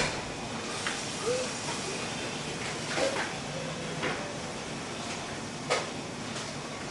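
Ambience inside a 7-Eleven convenience store: a steady background hum with scattered sharp clicks and knocks of items and fittings, the clearest about a second in, around three seconds in and near six seconds.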